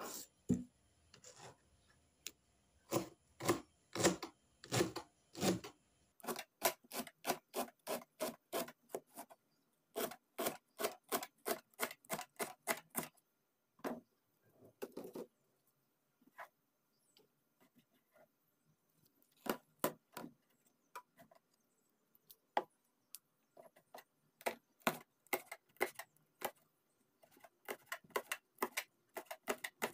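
Kitchen knife chopping cabbage on a cutting board: quick knocks of the blade against the board in runs of several a second, with short pauses between runs.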